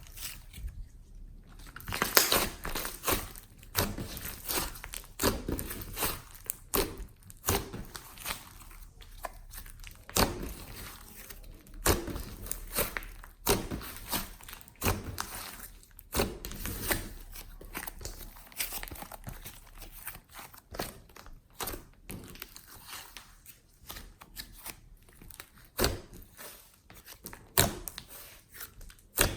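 Glossy slime being kneaded and mixed with clay by hand, giving a string of irregular sticky crackles, pops and squelches.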